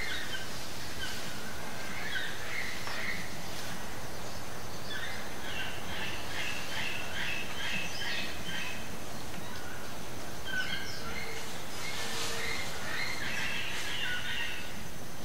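Rainforest ambience: high chirping calls repeated in quick runs, busiest in the middle and near the end, over a steady background hiss and a faint steady high tone.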